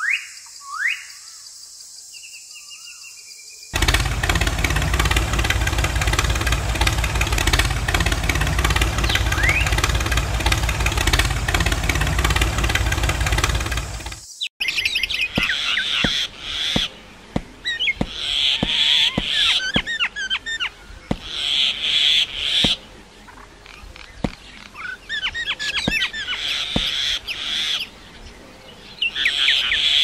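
Small birds chirping and twittering in quick, high calls, coming in repeated bursts with sharp clicks. For about ten seconds early on, a loud, dense noise with a low rumble covers everything, then it stops abruptly.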